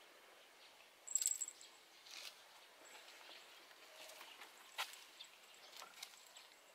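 Quiet outdoor ambience with a brief high chirp about a second in and a few faint scattered clicks and rustles.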